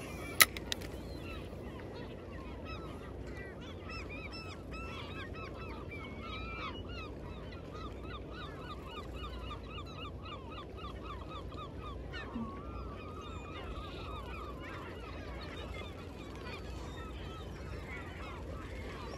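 A flock of gulls calling over the sea, many short overlapping cries at once, thinning out in the last third. A single sharp click about half a second in.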